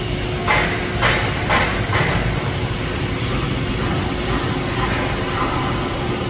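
Four sharp knocks, about half a second apart, like hammer strikes, over a steady low rumble.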